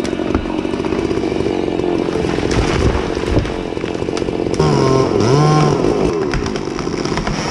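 Chainsaw running steadily under load. About two-thirds of the way through, a lower tone with a wavering, bending pitch sounds over it for a second or so.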